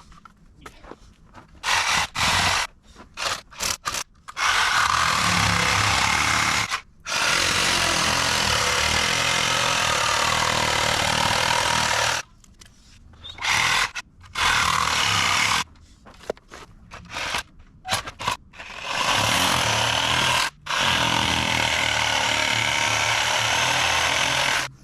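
Gas chainsaw with a new chain cutting a notch into a wooden timber: a few short throttle blips, then long full-throttle cuts of several seconds each, dropping back between cuts.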